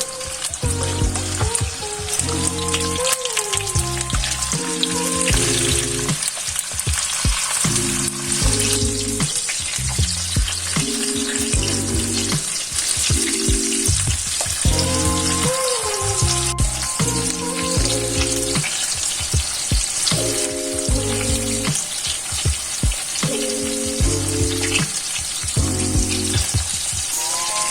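Food sizzling steadily in hot fat, a continuous crackling hiss, with background music playing over it.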